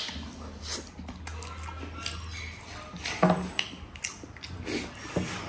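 A person eating close to the microphone: irregular chewing, smacking and clicking mouth sounds, with a louder smack a little past halfway.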